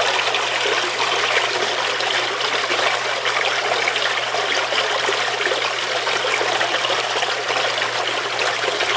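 Water splashing and churning steadily as jets from the nozzles of a closed-loop PVC manifold and a hose pour into a large aquarium, with a steady low hum underneath.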